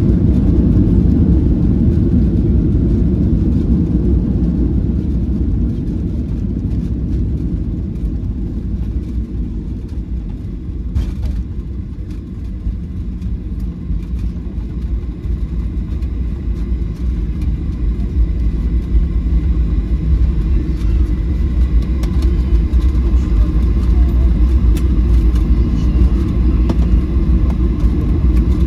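Cabin noise of a Boeing 737-700 rolling on the ground just after landing: a steady low rumble of engines and airframe. It eases off over the first dozen seconds and builds again later, with one short click about eleven seconds in.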